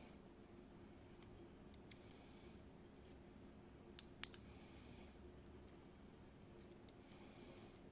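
A few small, sharp clicks over a faint background: two close together about four seconds in and a few more near the end. They come from the pins and tools of a KABA Penta lock being handled and set down while it is taken apart.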